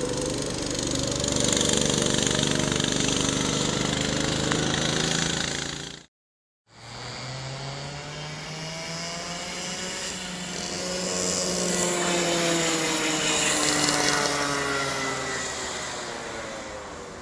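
Kart engine running at speed, its pitch rising and falling as the kart accelerates and slows. The sound drops out for a moment about six seconds in, then the engine is heard again, rising and falling and fading near the end.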